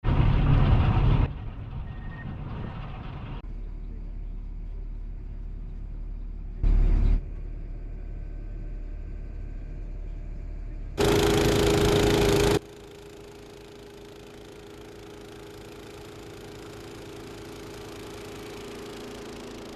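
Several short clips cut together abruptly, mostly a vehicle engine running. There are two short loud blasts of noise, one about seven seconds in and a longer one about eleven seconds in, and after that the engine runs steadily.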